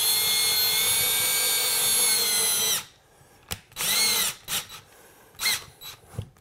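Cordless drill running steadily with a small pilot bit, pre-drilling into the wall to check for a stud behind it; it stops after about three seconds, then gives one short second spin about four seconds in, followed by a few light clicks.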